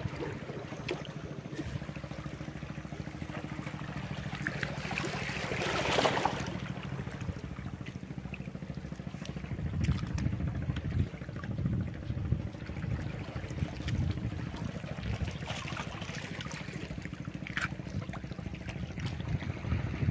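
Seawater lapping and trickling among shoreline rocks, with a bigger rushing wash of water about six seconds in, over a low steady hum.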